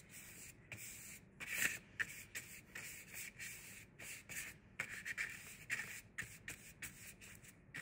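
Wide flat paintbrush brushing paint onto textured watercolor paper in a run of short, irregular strokes, several a second.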